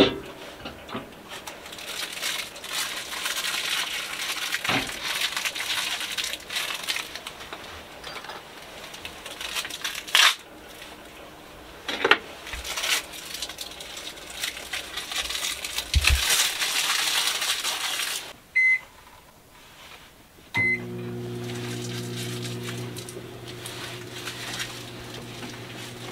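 Papery rustling and clicks as a microwave oven is loaded with popcorn, then two short beeps from its keypad, after which the microwave starts running with a steady electrical hum.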